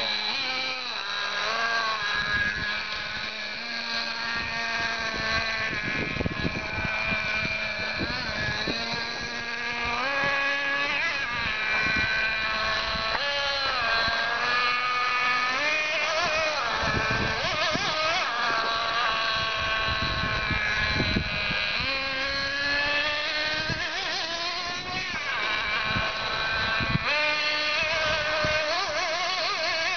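Radio-controlled model car's motor whining and revving, its pitch rising and falling again and again as the car speeds up and slows down.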